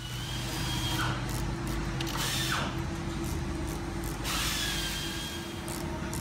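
Workshop machinery noise: a steady motor hum, with a power tool whirring in several short runs of about half a second to a second each.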